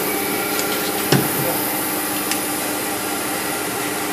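Automatic extrusion blow molding machine making 5-litre plastic jerry cans, running with a steady mechanical noise and one sharp knock about a second in.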